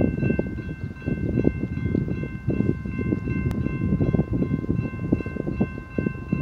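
Railroad grade-crossing warning bell ringing over and over, a steady repeating metallic ring that signals an approaching train. Gusty wind rumbles on the microphone underneath and is the loudest sound.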